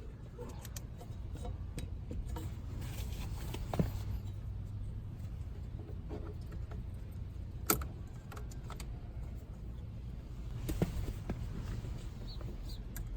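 Scattered light clicks and rattles of small parts being handled as a new ignition switch and its wiring are refitted to the steering column, over a steady low hum. The sharpest click comes a little past the middle.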